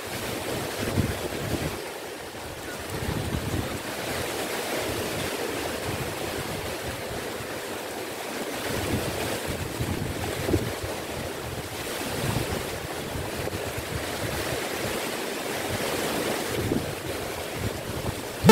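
Rough sea surf washing in steadily, with strong wind gusting on the microphone in irregular low buffets.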